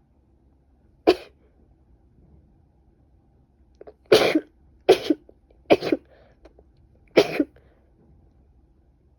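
A woman with a head cold sneezing five times: once about a second in, then three in quick succession about a second apart starting about four seconds in, and once more near the end.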